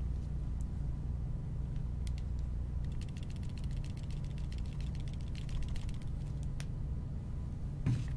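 A white iPhone XR shaken hard close to the microphone, giving a fast, faint clicking rattle from a loose part inside the lower case. The owner doesn't know the cause and weighs a loose camera lens against the Taptic Engine's springs. A knuckle cracks near the end, all over a low steady hum.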